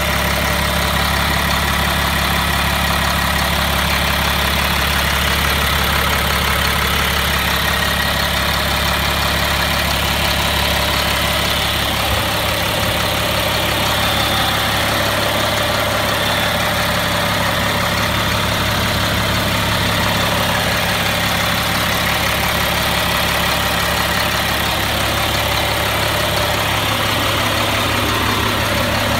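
Caterpillar diesel engine idling steadily. About twelve seconds in, its low rumble takes on a rapid, even pulsing.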